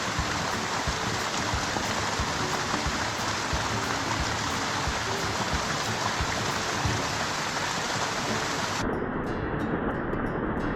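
Mountain stream water rushing and splashing over rocks, a steady even wash. About nine seconds in it turns duller, with the hiss cut off.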